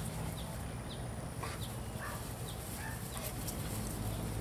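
Short, high bird chirps repeating every second or so over a low, steady outdoor rumble.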